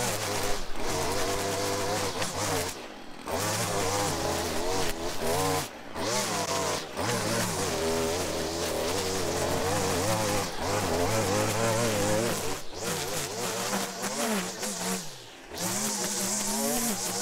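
Two-stroke gas string trimmer running near full throttle while cutting grass and weeds. Its engine pitch wavers under the load of the line, and it drops off briefly several times as the throttle is let off.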